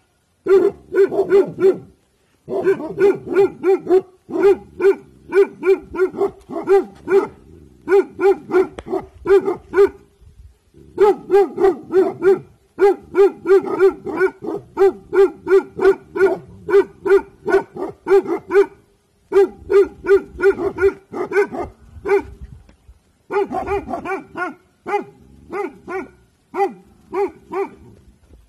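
Bhotia guard dog barking in rapid runs of about four barks a second, broken by short pauses: alert, warning barking.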